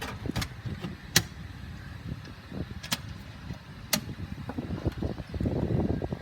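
Sharp metal clicks from the engine nacelle's access panels being fitted and latched, four of them spread over about four seconds. A low rumbling noise grows louder near the end.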